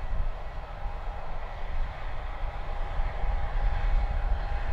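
Jet airliner engines running: a steady noise over a heavy low rumble, with a thin steady whine, growing a little louder toward the end.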